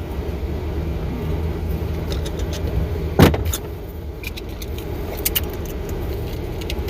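Small thermostat housing being forced apart by hand: one sharp crack a little over three seconds in as it breaks, then small clicks and rattles of its loose parts, over a steady low hum.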